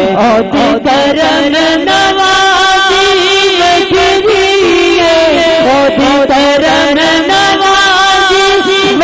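A man singing a Punjabi naat into a microphone, drawing out long wavering melismatic notes without words between the lines of the refrain.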